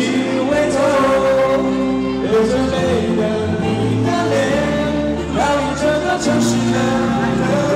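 Live Mandopop song: a male singer sings into a handheld microphone over instrumental accompaniment, amplified through the hall's sound system.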